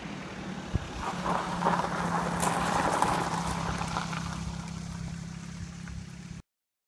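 A passing car, its engine and tyre rush swelling to a peak and fading away over a steady low hum. The sound cuts off abruptly near the end.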